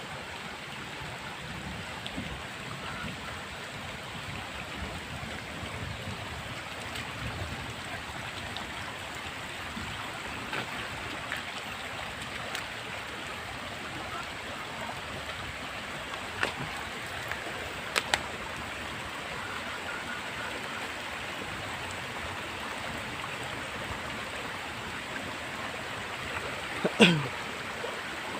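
Steady rain with running runoff water. A few sharp ticks sound from drops, and near the end a brief sound slides downward in pitch and is the loudest moment.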